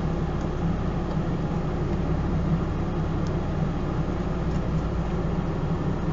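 Steady low hum of a room air conditioner running, with a few faint marker strokes on paper.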